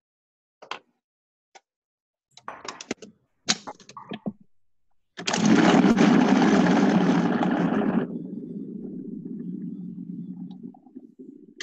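A few sharp knocks and taps, then a Cuisinart food processor runs for about five and a half seconds on its steel blade, mixing egg into a very full bowl of cheesecake batter. The motor's sound is loudest and fullest for the first three seconds, then suddenly thins to a lower hum.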